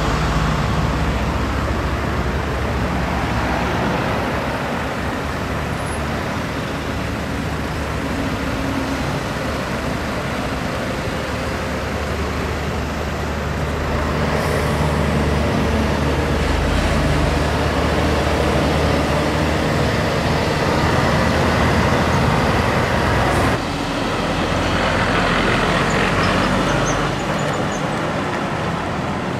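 Heavy diesel trucks and trailers driving by at low speed, with steady engine hum and tyre noise over road traffic. The sound changes abruptly about three-quarters of the way through.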